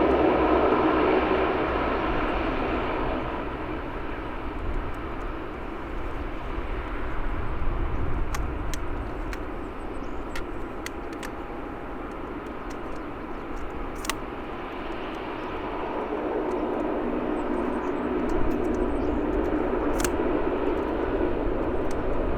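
Jet airliner engine noise, loud at first and fading after a few seconds, then building again toward the end, with a few faint clicks in between.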